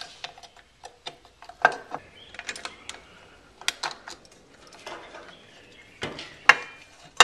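Metallic clicks and clinks of drum brake hardware being handled as a brake spring is hooked onto the shoes, irregular, with the loudest clink about six and a half seconds in.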